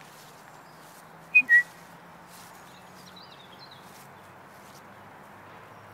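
Two short, loud whistled notes about a second and a half in, the second lower than the first. Faint bird chirps follow a little later.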